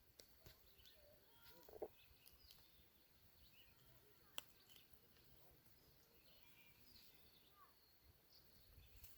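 Near silence: faint outdoor ambience with a few distant bird chirps, a soft knock just under two seconds in and a single faint click about halfway through.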